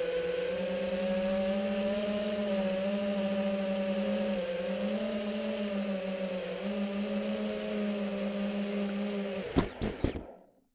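Motors and propellers of an iFlight Titan DC5 five-inch FPV quadcopter humming steadily, as picked up by the onboard DJI Air Unit, the pitch wavering slightly with throttle. Near the end, a few sharp knocks as the quad hits the ground, then the sound cuts off.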